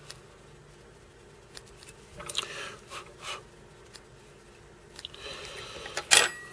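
Small fly-tying scissors and fingers handling a streamer fly at the vise: scattered soft clicks and two short stretches of rustling, ending with one sharp, loud click near the end.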